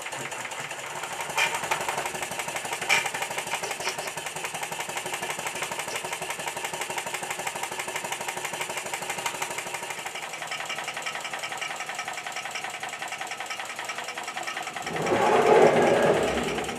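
Single-cylinder model steam traction engine running fast under live steam, its exhaust beats and motion making a rapid, even mechanical chatter. Two sharp clicks come early on, and a louder swell of sound rises near the end.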